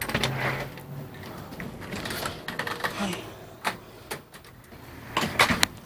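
A door being opened and footsteps in sandals on a wooden deck: a few scattered clicks and knocks, the sharpest of them about four to five and a half seconds in, over handling rustle.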